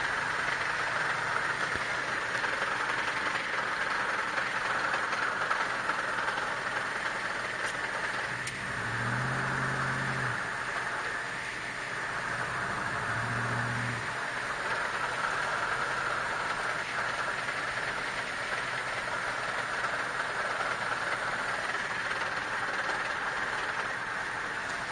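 1995 Buick Roadmaster wagon under way, a steady rush of road and drivetrain noise. Twice, about a third of the way in and again a few seconds later, a low hum swells up for a second or two and fades: the drivetrain noise the owner calls strange.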